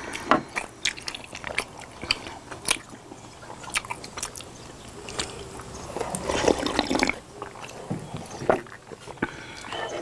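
Close-up eating sounds: chewing with scattered small mouth clicks, then slurps of sujeonggwa drunk from glass bowls about six seconds in, the loudest part.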